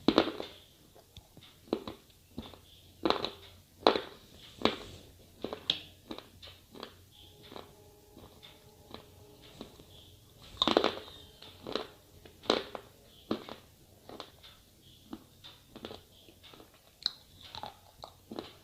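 Slate pencils being bitten off and chewed close to the microphone: irregular sharp cracks and crunches, a few much louder bites among quieter grinding chews.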